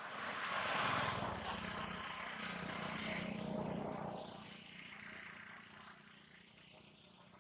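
An engine passing by: its hum swells about a second in and fades away over the next few seconds. Steady rain hiss runs beneath it.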